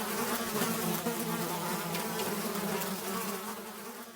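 A buzzing insect's wings making a steady drone that fades out near the end.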